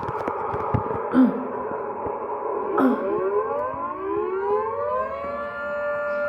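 Federal Signal 3T22 three-phase tornado siren winding up from a standstill at the start of its test. A rushing noise comes first. From about three seconds in, the siren's chord of tones rises steadily in pitch, then levels off into a steady sound near the end.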